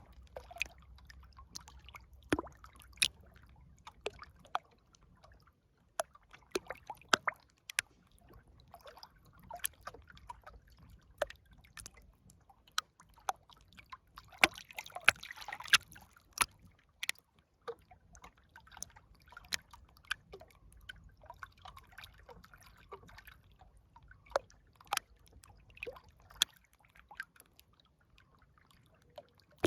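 River water trickling and dripping, with irregular sharp drips and small splashes and a short stretch of busier splashing about halfway through.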